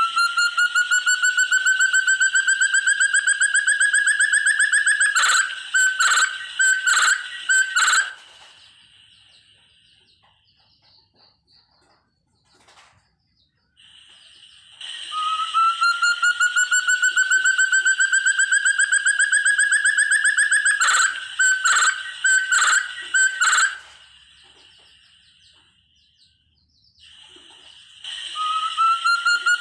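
Forest partridge (puyuh hutan, called burung terung) calling: a long, fast trill of pulsed notes rising slowly in pitch for about five seconds, ending in four or five separate loud notes. The same phrase comes again after a pause of several seconds and starts a third time near the end, each time alike, over a steady high tone.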